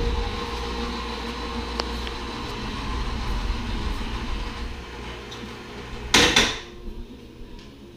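A steady low mechanical hum with a few held tones, like a motor running, broken about six seconds in by a loud, brief burst of noise.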